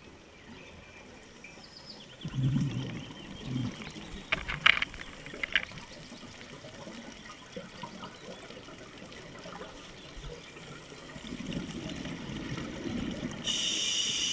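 Scuba diver's exhaled bubbles rumbling and gurgling close to a GoPro in its underwater housing, in a bout about two seconds in and again near the end. A few sharp clicks sound around five seconds in, and there is a brief hiss near the end.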